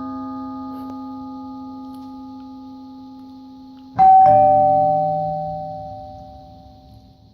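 Doorbell ding-dong chime sound effect: the ringing tail of one chime fading out, then a fresh two-note ding-dong struck about four seconds in, its tones ringing and slowly fading.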